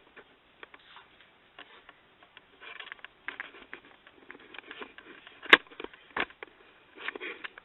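Handling noise: scattered taps, clicks and rustles, with a sharp click about five and a half seconds in and a duller knock about half a second later.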